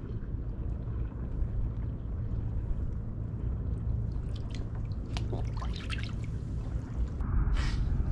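Water dripping and splashing against a kayak over a steady low rumble, with scattered drips in the middle and a short splash near the end as a small smooth hound is let go back into the sea.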